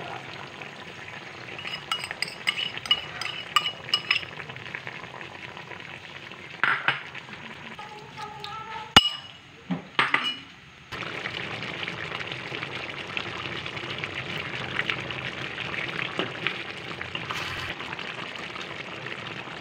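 Chicken and coconut milk sizzling in a wok, with a metal spoon clinking against a bowl in the first few seconds. From about eleven seconds in the sizzle runs steady with light crackles.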